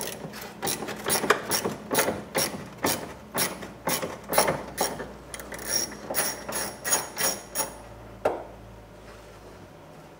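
Hand ratchet with a 7/16 deep socket and extension backing out a body bolt, its pawl clicking in short rapid runs of strokes, stopping about eight seconds in after one last click.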